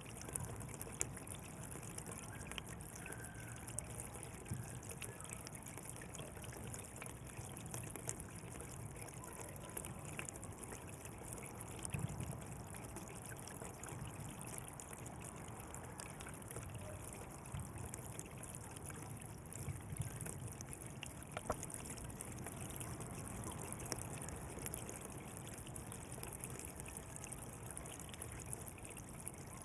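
Water flowing along a canal: a steady watery rush with small, irregular splashes and ticks.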